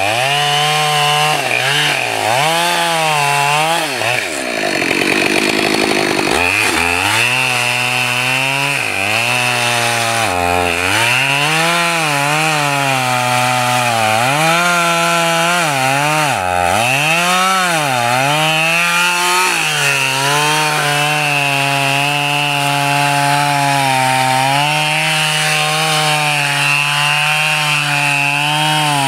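Husqvarna 572XP two-stroke chainsaw cutting through a large maple log at full throttle. The engine pitch repeatedly sags and recovers as the chain loads up in the cut, with one deep sag about five seconds in, then holds steady for the last third.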